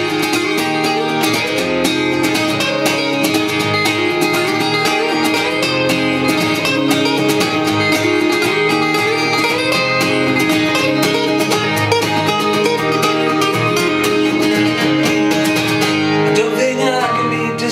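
Live band playing a song's instrumental introduction: strummed and picked guitars at a steady beat. The playing thins out near the end, just before the vocals come in.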